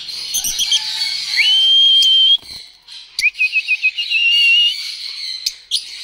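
Caged African lovebirds chirping shrilly, with two long high whistled notes. The first comes about a second and a half in; the second follows a quick run of short chirps about three seconds in.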